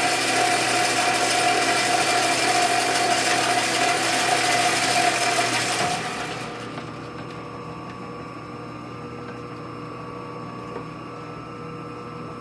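Geared-head metal lathe running a cut on a metal part, a steady whine over the hiss of the tool and chips. About six seconds in the cut ends and the lathe winds down, leaving a fainter steady hum.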